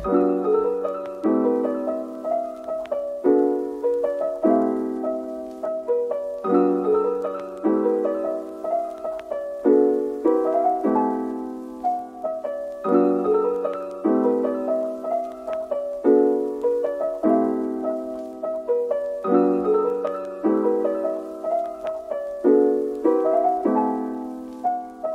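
Background piano music: a steady pattern of repeated chords and melody notes, each note fading after it is struck.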